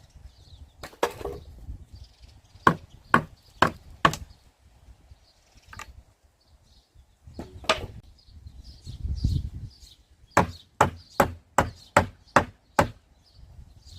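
Repeated sharp strikes on wood, as in hammering or knocking apart timber, in runs: a single blow, four quick ones, another single one, then seven in a row at about two or three a second. Birds chirp faintly between the blows.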